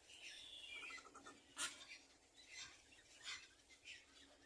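Faint bird chirps and calls: a falling whistled note, a quick run of short ticking notes, then scattered short chirps, with one sharp click about a second and a half in.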